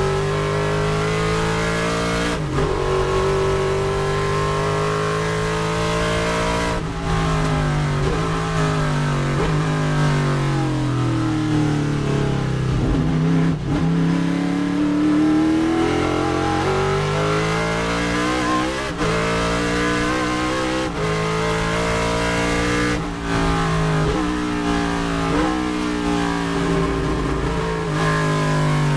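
Race-prepared Chevrolet Nova's engine, heard from inside the cockpit under hard acceleration, climbing in pitch through the gears with quick upshifts. It drops away in pitch as the car slows around the middle, then pulls up through the gears again and drops once more near the end.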